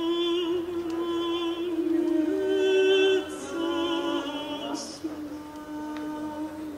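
A woman singing slow, long held notes, the pitch stepping up and down a few times, with two short hisses in the middle.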